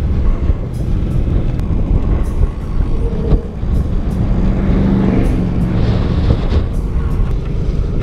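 Suzuki AX 100 motorcycle's small two-stroke single running on the road, under a loud, steady rumble of wind on the microphone.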